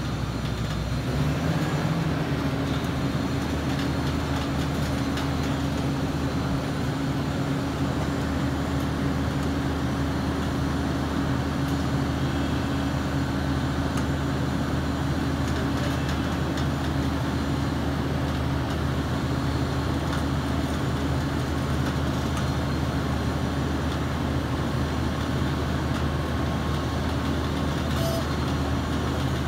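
Diesel engine of a DR-220 rotary drilling rig running steadily with a constant low hum while its retractable crawler chassis is hydraulically extended to widen the track stance.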